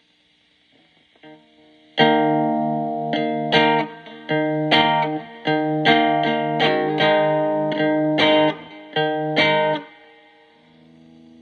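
Electric guitar played through a breadboarded MXR Distortion+ overdrive circuit, its clipping diodes chosen on a diode substitution box. About a dozen picked notes and chords start about two seconds in and stop about ten seconds in, leaving a faint low note ringing.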